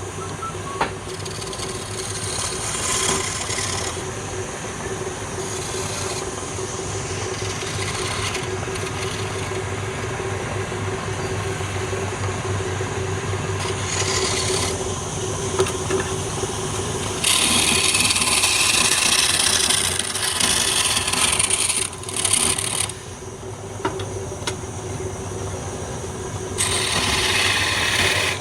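Wood lathe running with a steady motor hum while a tool works the spinning wood with a rasping hiss. The hiss grows much louder for several seconds about two-thirds of the way through and again near the end.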